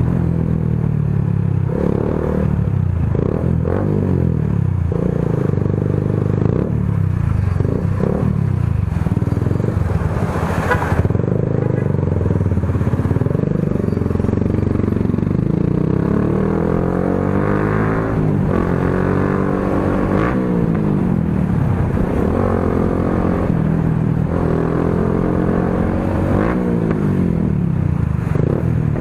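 Motorcycle engine through an aftermarket muffler with its silencer insert removed, really loud, its pitch rising and falling again and again as the throttle is opened and closed.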